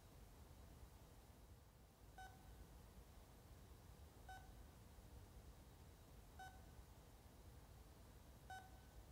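Faint electronic beeping of a hospital monitor, one short tone about every two seconds, four in all, over a low hum.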